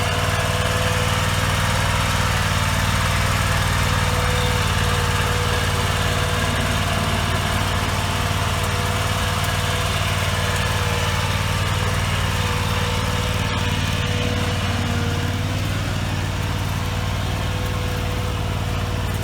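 Riding lawn mower engine running at a steady speed: a constant hum with a higher steady whine over it.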